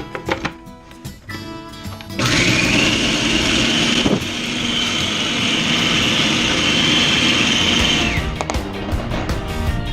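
Small electric kitchen appliance motor, like a blender's, running for about six seconds: it spins up with a rising whine about two seconds in, runs steadily, and winds down near the end.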